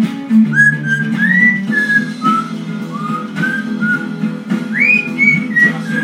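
Lilac-crowned Amazon parrot whistling a string of short notes, each rising then falling in pitch, along with a song played from a recording with acoustic guitar. The whistling pauses briefly about four seconds in.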